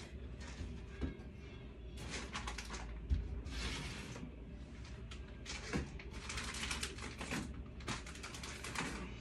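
Rummaging through packets and boxes on a shelf: rustling and light clicks and knocks in several short bursts.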